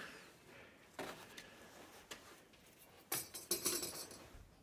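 Quiet handling of a rusty cut-out piece of sheet steel and a sheet of cardboard on a workbench: a few light knocks, then a short metallic clinking rattle about three seconds in.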